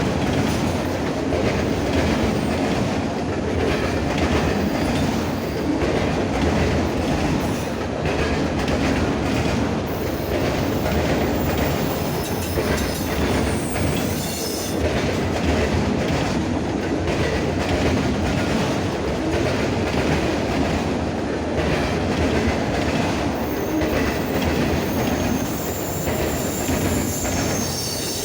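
Norfolk Southern freight cars rolling steadily past, wheels clacking rhythmically over the rail joints, with a faint high wheel squeal near the start and again near the end.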